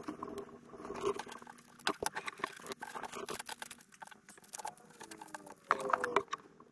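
Irregular scratching and rustling with many sharp clicks, and a couple of short falling squeaks about five seconds in.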